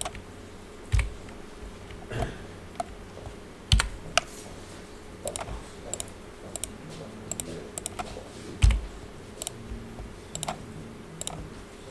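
Irregular clicking of a computer keyboard and mouse, some clicks in quick pairs, with a few dull thumps, the loudest about three-quarters of the way in.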